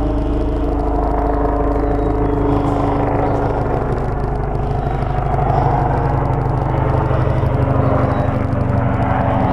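Low-flying military aircraft passing overhead: a steady, loud engine drone with several pitched tones over a rapid low flutter. The pitch shifts slightly downward about three seconds in.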